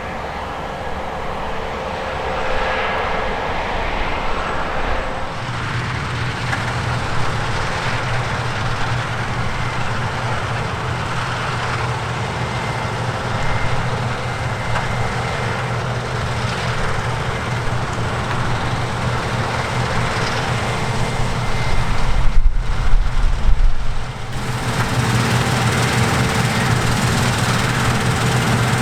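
Harvest machinery at work: the steady, loud running noise of combine harvester and tractor engines, with a low engine hum setting in about five seconds in. A louder low rumble lasts about two seconds near the end, then the sound changes abruptly.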